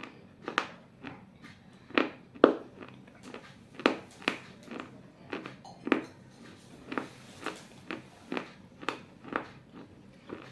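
Close-up chewing of pieces of a baked clay bowl: a steady run of crisp crunches, about two a second.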